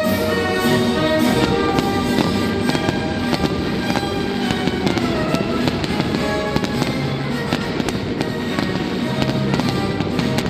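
Fireworks going off in repeated bangs and crackles throughout, over loud orchestral music.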